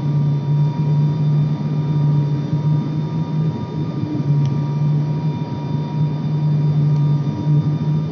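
Turboprop airliner's engine and propeller heard from inside the cabin on final approach: a loud, low drone that swells and fades every few seconds, with a steady high whine above it.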